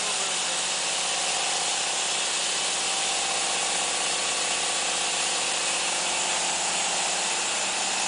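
Diesel portable horizontal band sawmill cutting through a log: a steady hiss from the band blade in the wood over the even hum of the diesel engine.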